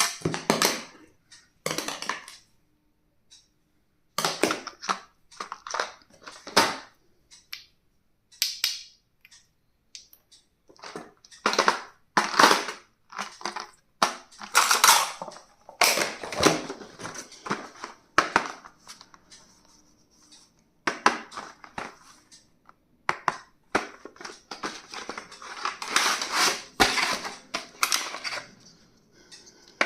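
Stationery packaging being handled and opened: crunching and crinkling of wrappers with sharp clicks and taps, in irregular bursts separated by short pauses.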